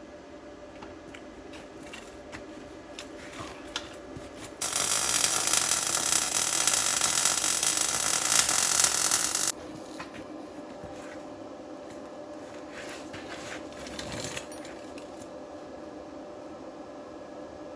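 MIG welder arc crackling steadily on the steel excavator bucket for about five seconds in the middle, starting and stopping abruptly. Before and after it there are only faint scattered clicks.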